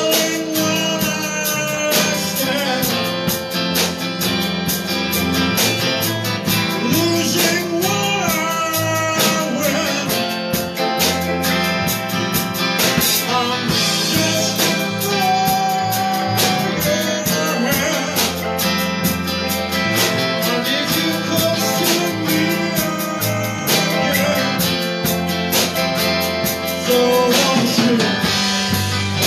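Live blues band playing: guitars, electric bass and a drum kit, with bending guitar notes.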